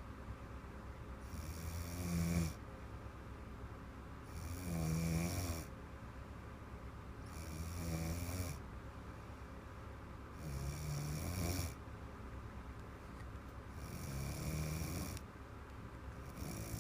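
A woman snoring in deep sleep after drinking wine: a rattling snore about a second long on each breath, repeating steadily about every three seconds, five times with a sixth starting near the end.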